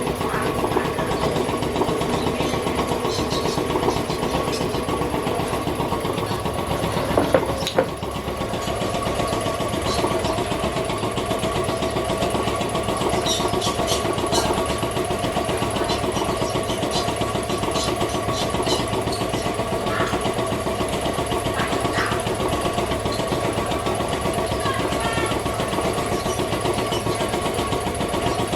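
A motor running steadily, with a brief knock about seven seconds in.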